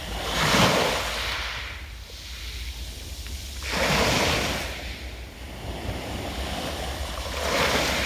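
Small sea waves breaking on a pebble beach: three rushes of surf about every three and a half seconds, each swelling and then fading as the foam washes over the stones.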